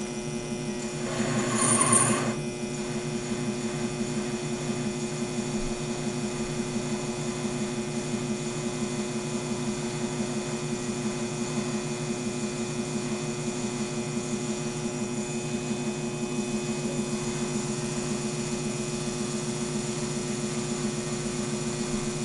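Taig lathe running steadily while a hand-swung ball turning tool takes a very light finishing cut on a small 304 stainless steel ball. The sound is briefly louder about a second and a half in.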